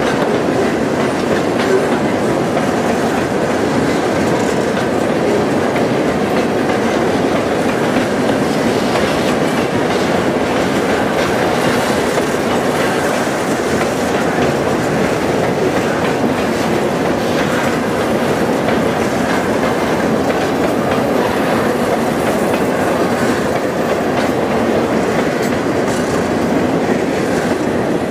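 Loaded iron-ore hopper cars of a freight train rolling past, a steady, loud noise of steel wheels on rail.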